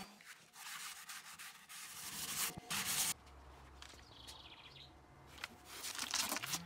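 A random orbit sander cuts off at the start, followed by a few seconds of scratchy rubbing noise. Then comes a quieter stretch with a faint bird chirp, and a run of quick spray-bottle squirts near the end as water is misted onto the wood.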